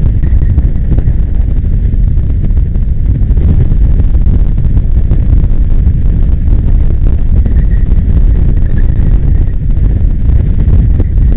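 Wind buffeting the on-board camera microphone over the rumble of an electric go-kart driving at speed, with no engine note. A faint high tone comes and goes a few times.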